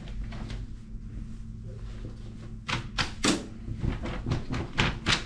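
Fabric rustling and short soft knocks as a cotton T-shirt is handled and spread out on a heat press's lower platen, over a steady low hum. The handling noises come in a quick cluster from about halfway through.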